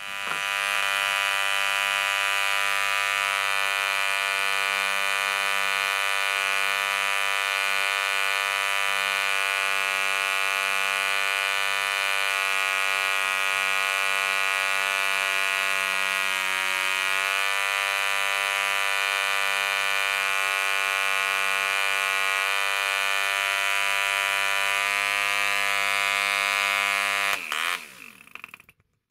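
Small model aircraft engine turning a two-blade propeller, starting at once and running steadily at a high, buzzing speed with a slight dip in pitch about halfway through. Near the end it slows with a falling pitch and stops.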